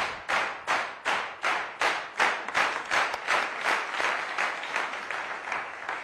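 Studio audience clapping in unison to a steady beat, about three claps a second, growing weaker near the end.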